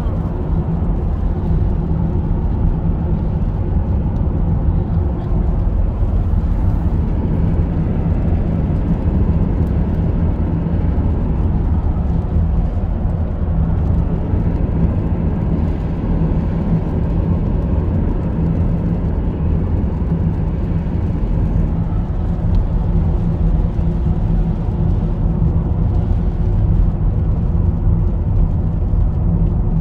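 Steady low rumble of a car driving along, heard from inside the cabin: tyre and engine noise with a constant low hum.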